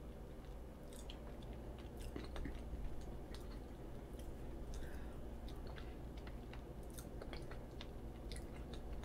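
Close-miked chewing of soft, cream-filled roll cake: faint scattered mouth clicks and smacks, over a steady low hum.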